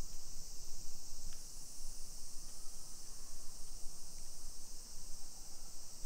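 Summer cicadas in a steady chorus: one unbroken high-pitched drone.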